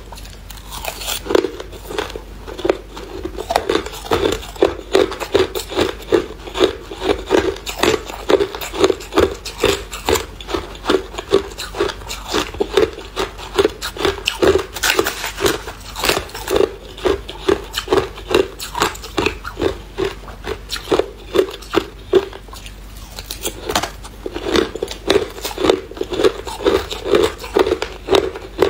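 A person chewing and crunching hard clear ice close to the microphone, in a steady run of about two to three sharp crunches a second. The chewing pauses briefly about 23 seconds in, then starts again.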